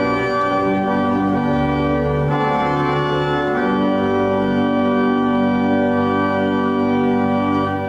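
Organ playing slow, full sustained chords, moving to one long held chord that is released near the end.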